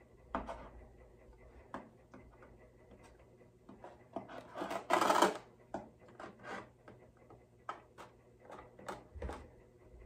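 Scattered small taps, clicks and knocks of hand tools and wooden parts against the open wooden body of an archtop guitar, with one louder short scrape about five seconds in.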